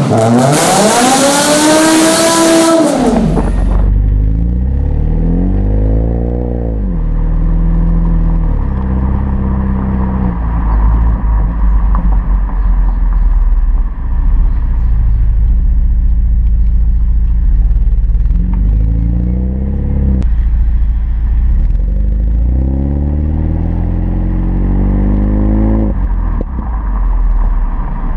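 BMW M5 E60's V10 revved hard once, the pitch climbing and falling, for about the first three seconds. It then cuts to a BMW 320i E90's four-cylinder exhaust idling low, blipped up three times, the last rev held longest.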